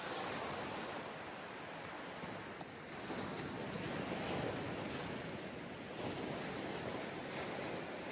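Ocean surf on a sandy beach: waves breaking and washing up in overlapping swells, the strongest rush about three to four seconds in.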